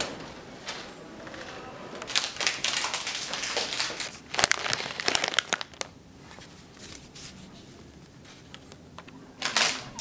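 Plastic Maltesers pouch crinkling as it is handled. The crinkling is loudest from about two seconds in to just past the middle, then fainter, with a short burst near the end.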